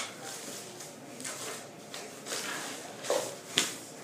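Paper and wrappers rustling as they are gathered up, in irregular bursts with a couple of light knocks near the end.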